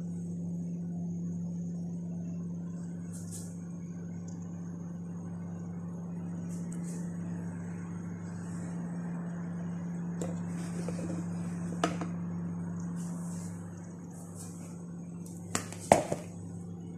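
A steady low hum with a few light, sharp knocks: one near the middle and a short cluster near the end.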